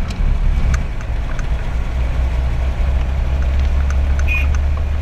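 Cab interior of a Toyota HJ47 Land Cruiser Troop Carrier under way on a gravel road: its 2H straight-six diesel and the road noise make a steady low drone, with light clicks and rattles now and then and a brief squeak about four seconds in.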